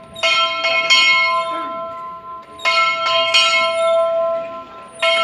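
A single church bell being rung, struck in bursts of a few quick strokes about every two and a half seconds, its tone ringing on between the bursts.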